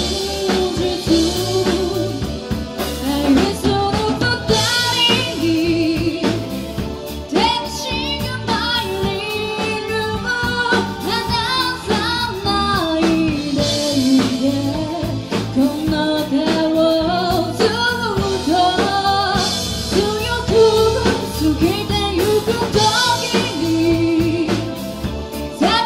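A female vocalist sings the lead melody over a live band of drum kit, electric bass, keyboards and electric guitar, playing a J-pop song.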